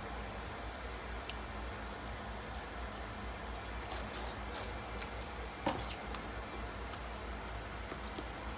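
Small knife cutting raw chicken thigh meat away from the bone on a plastic cutting board: soft wet squishing of the flesh, with a few sharp knife clicks on the board, the loudest about halfway through, over a steady low hum.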